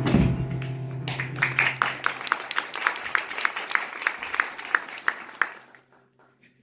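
A live band's number ends on a final hit, then audience applause, with one nearby clapper's claps standing out at about three a second. The applause dies away about a second before the end.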